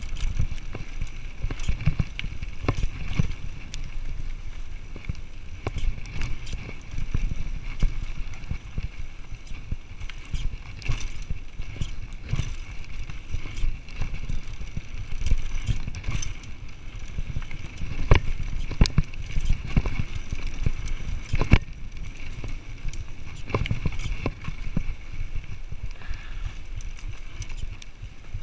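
Cube Fritzz 180 full-suspension mountain bike on 27.5-inch wheels riding fast downhill on a dirt trail, heard through a GoPro: a continuous low rumble of tyres on dirt with frequent sharp knocks and clatters as the bike hits bumps. The loudest knocks come about eighteen and twenty-one seconds in.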